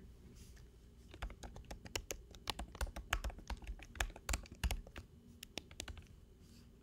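Computer keyboard keys being typed, a quick uneven run of clicks that starts about a second in and stops about a second before the end.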